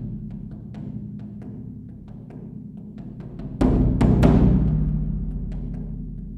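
Japanese taiko drumming: quick light strikes over a steady low drone, then about three and a half seconds in, two or three heavy strikes on a big drum that ring out and slowly die away.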